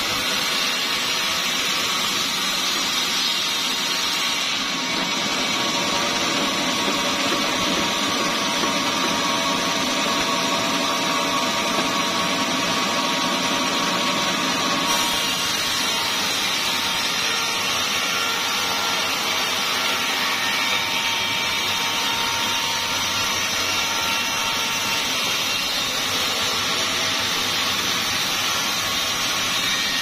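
Sawmill band saw running and cutting lengthwise through a small-leaf acacia log, a loud, steady machine noise throughout.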